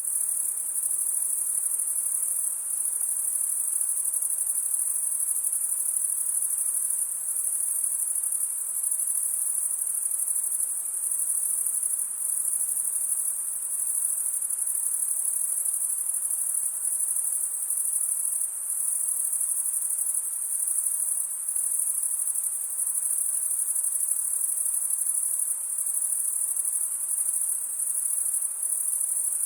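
Rainforest insects in a dense, steady, high-pitched chorus that never breaks.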